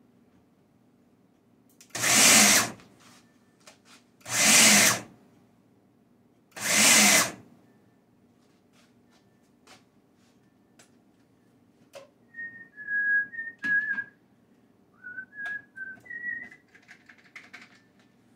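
Ninja food processor pulsed three times, each burst of chopping about a second long, roughly two and a half seconds apart, as it chops chunks of vegetables. Later there are a few light clicks, and a person whistles a short tune of stepping notes.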